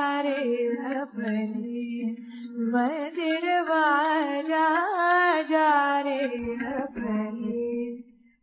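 Musical interlude: a single voice singing a slow melody with long held, wavering notes. It fades out just before the end.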